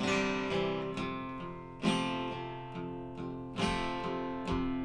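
Acoustic guitar strummed without singing, each chord ringing and fading before the next strum. Heavier accented strums come about two seconds in and again a little before the end.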